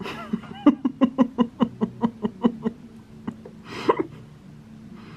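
Hand saw cutting an MDF board in quick back-and-forth strokes, about five a second for roughly two and a half seconds. One more stroke follows, then a short louder rasp about four seconds in.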